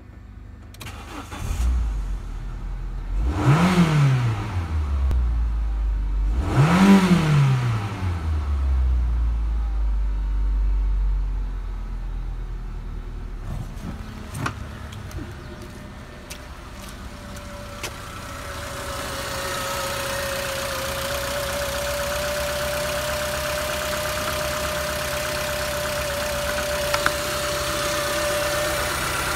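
Renault Laguna II's 2.0-litre F4R712 petrol four-cylinder running: revved twice, about 3.5 and 7 seconds in, each rev rising and falling in pitch, then settling to a steady idle. In the second half it is heard close under the open bonnet, with a steady whine over the idle.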